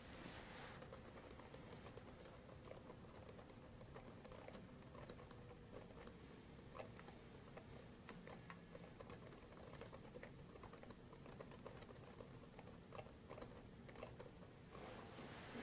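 Faint computer keyboard typing: scattered light key clicks at an uneven pace, over a faint steady hum.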